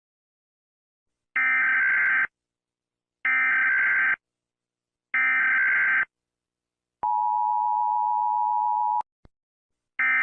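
Emergency Alert System tones: three buzzy digital SAME header data bursts of about a second each, spaced roughly two seconds apart. They are followed by about two seconds of the steady two-tone EAS attention signal. A brief click and the start of another short data burst come near the end.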